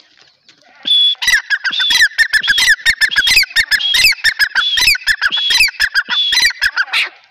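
Grey francolin calling: a short high note about a second in, then a loud, rapid run of repeated high notes that goes on for about six seconds.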